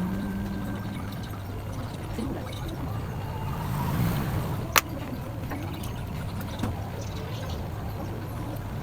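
Steady low hum with one sharp click a little under five seconds in and a fainter click near seven seconds.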